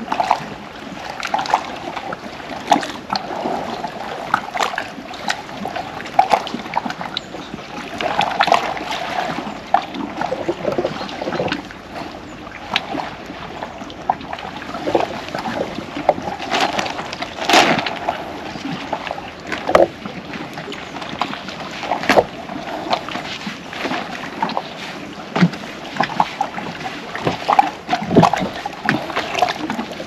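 Seawater sloshing and lapping against rocks and wooden decking, with irregular sharp knocks and splashes.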